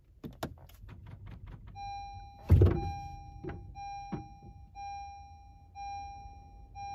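Car's push-button ignition pressed: a few faint clicks, then a dashboard warning chime beeping about once a second as the car flags an electric parking brake problem. A loud thunk comes about two and a half seconds in, followed by two softer knocks.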